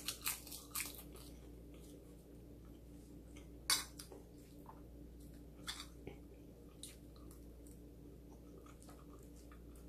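Eating sounds: soft chewing, with a spoon clinking and scraping against a plate a few times, the sharpest clink about four seconds in.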